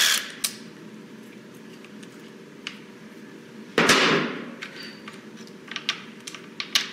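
A cordless driver stops right at the start. About four seconds in there is a single sharp clatter, followed by light clicks of the transmission's wiring harness and its plastic connectors being handled.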